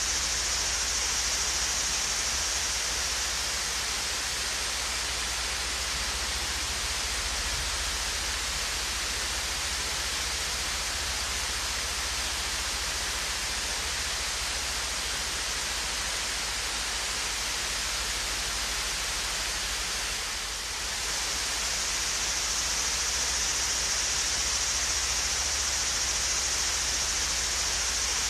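Swayze Falls, a gentle waterfall, pouring steadily: an even, unbroken rush of falling water with a bright hiss on top, dipping slightly for a moment about twenty seconds in.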